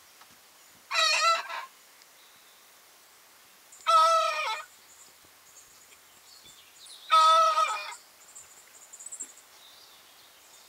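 A young rooster trying to crow, not very successfully, from inside its coop house: three short, high, strained crows about three seconds apart.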